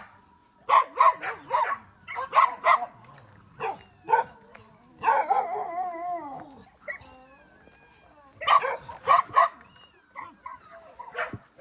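Dogs barking in short bouts of three or four quick barks, with a longer wavering dog call about halfway through.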